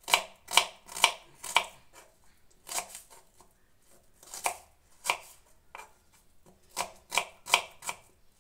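Kitchen knife chopping onion on a wooden cutting board: about ten sharp knocks, a quick run of four in the first second and a half, then scattered strokes with pauses between.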